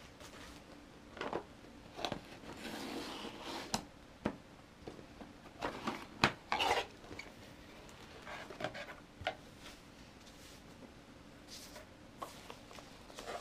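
Cardboard product box being handled and opened on a wooden desk: scattered light knocks, scrapes and rustles of cardboard, with the sharpest knock about six seconds in.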